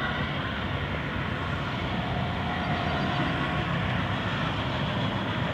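Steady, even outdoor urban background rumble with no distinct events.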